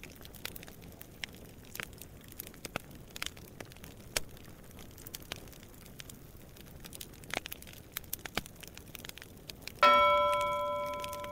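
Sparse crackling clicks, then about ten seconds in a single struck bell-like ding that rings on in several tones and slowly fades.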